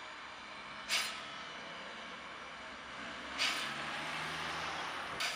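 Steam locomotive exhausting in slow, sharp hissing chuffs, three of them about two seconds apart. A steady hiss of steam with a low hum underneath sets in between the last two.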